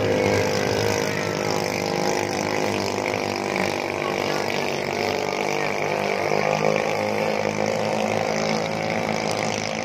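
Engines of small racing speedboats running flat out in a race, a steady drone with more than one engine tone overlapping.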